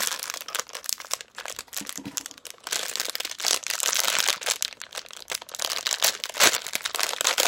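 Foil wrapper of a blind-box figure crinkling and tearing as it is pulled open by hand: a dense run of crackles, heaviest about three to five seconds in.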